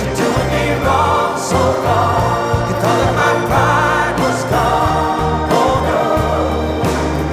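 Background song with sung vocals with vibrato over a steady bass line.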